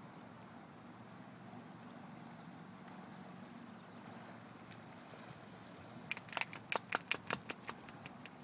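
A steady low hum by the river, with a quick run of about a dozen sharp clicks about six seconds in, lasting roughly two seconds.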